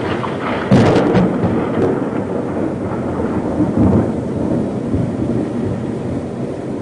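Storm wind rushing steadily, broken under a second in by a sudden crack of thunder that rumbles on, with a second rumble of thunder about four seconds in.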